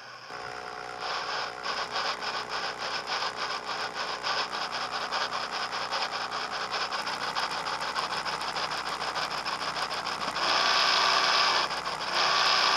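SoundTraxx Tsunami steam sound decoder in an HO-scale Athearn rotary snow plow: rapid, even steam chuffing over a steady hum. Near the end come two whistle blasts.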